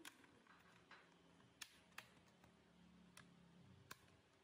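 Faint, sparse clicks of an Acer laptop's plastic screen bezel being pressed onto the display panel, its clips snapping into place, about five clicks over a few seconds, against near silence.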